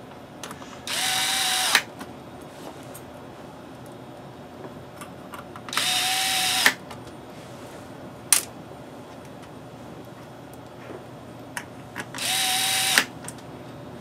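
Cordless drill-driver with its clutch set to torque 9, driving screws in three short runs of about a second each. Each run is a steady motor whine that cuts off with a sharp click, and a single click falls between the second and third runs.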